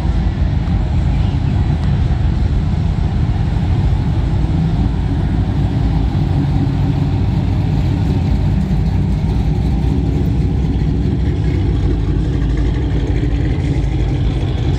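Car engine running with a loud, steady low rumble.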